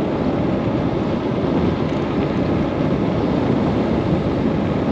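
Steady wind noise rushing over a forehead-mounted GoPro's built-in microphone while riding an electric scooter uphill against a headwind. There is no engine note or motor whine.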